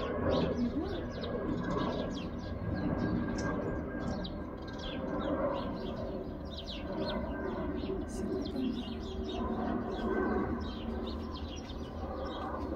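Small birds chirping over and over, above a steady low rumble from the engines of an Airbus A320neo on final approach.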